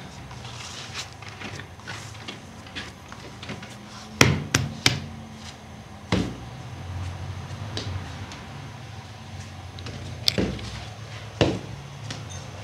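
A few sharp knocks or clatters, three in quick succession about four seconds in, another a little later and two more near the end, over a steady low hum.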